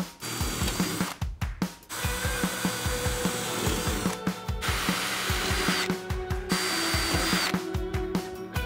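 Cordless drill boring through the sheet steel of a Citroën 2CV body panel, running in several spells of about a second or two with short stops between. Background music with a steady beat runs underneath.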